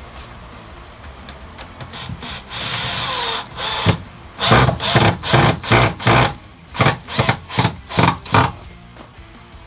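Cordless drill driving screws into a timber bed-frame rail. About two and a half seconds in, the motor makes one steady run that winds down; from about four and a half seconds come a string of short bursts, two to three a second, as the screw is pulsed home into the wood.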